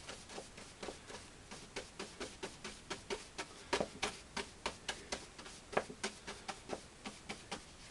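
A large oil-painting brush tapping repeatedly into phthalo blue oil paint, with sharp, slightly irregular taps about four times a second.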